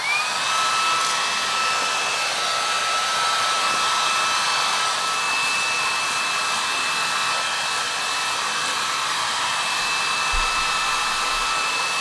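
Hoover H-Free 500 cordless stick vacuum's motor, used as a handheld, switched into turbo mode. Its high whine rises in pitch right at the start, then holds steady over a loud even rushing of air.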